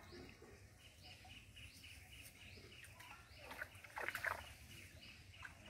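Faint bird chirping repeats steadily in the background. A little past the middle comes a brief burst of splashing and rustling as the wet cast net is drawn up out of the pond.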